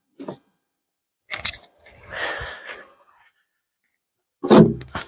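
Hands rummaging through potting compost in a potato container, giving short bursts of rustling and crunching, with a louder burst near the end.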